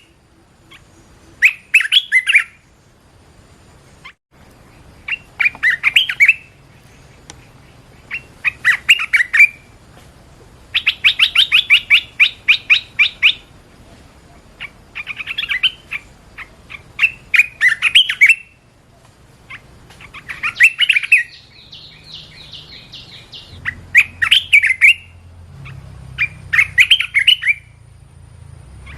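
A bulbul singing short, bright, bubbly phrases, one every two to three seconds, with one longer run of rapid repeated notes about eleven seconds in.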